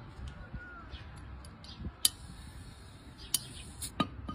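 A nail being tapped into the metal cap of a glass soft-drink bottle: four sharp taps, one about two seconds in and three close together near the end. It is punching a tiny hole in the cap to sip the drink through slowly.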